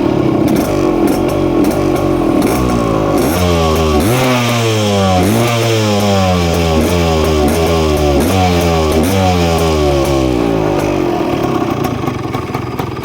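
Yamaha DT 175's single-cylinder two-stroke engine running, revved in a series of quick throttle blips about once a second that each rise sharply and fall back, then settling to a low idle near the end.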